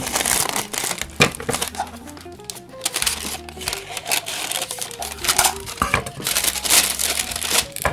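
Oven paper crinkling and rustling in irregular strokes as it is folded and creased around an aluminium mess tin, over background music with a steady bass line.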